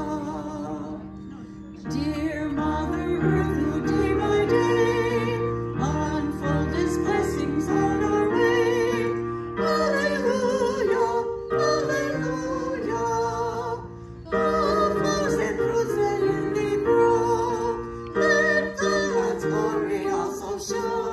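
A woman singing a slow song with vibrato, accompanied by an electronic keyboard, in phrases separated by short breaths.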